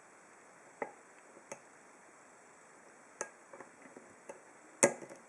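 Faint metallic ticks and taps of a deep hook pick working the pin stacks inside a Master Lock No. 19 padlock core under light tension, spaced irregularly, with one sharper, louder click near the end.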